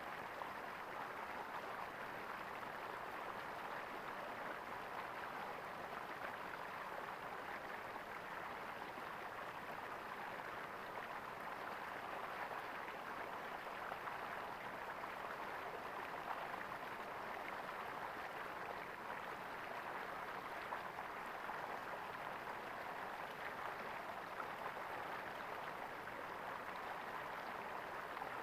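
Flowing water gurgling steadily, an even rush with no pauses.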